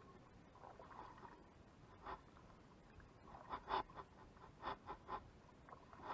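Faint kayak paddle strokes in the water: a few short splashy dips, irregular and coming closer together in the second half.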